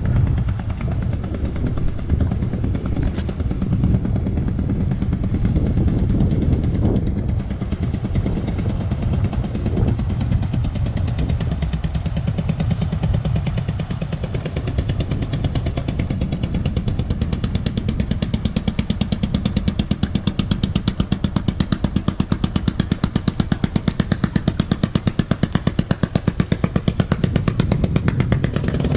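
Vintage inboard boat engine running with a steady, slow putt-putt firing beat. The beat grows louder and more distinct in the second half.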